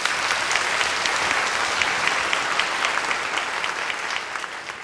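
Audience applauding, a dense wash of many hands clapping that eases off slightly near the end.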